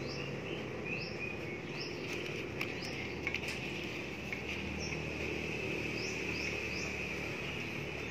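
Background insects: a steady high drone with short rising chirps repeating about once a second, and a few light clicks around the middle.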